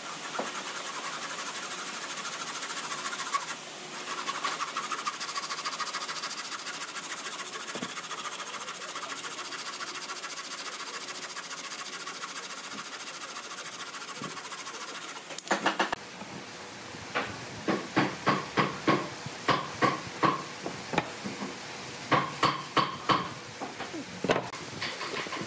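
Hand saw cutting through a pine board in a steady, fast rasp, with a short break about three and a half seconds in. About fifteen seconds in the sawing stops and gives way to a run of separate short scraping strokes of a hand tool on wood, about two a second.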